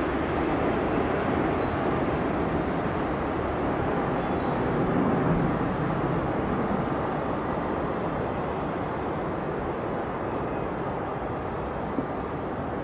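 Airbus A380-841's four Rolls-Royce Trent 900 turbofans at climb thrust after takeoff: a steady, deep jet rumble that slowly fades as the aircraft climbs away.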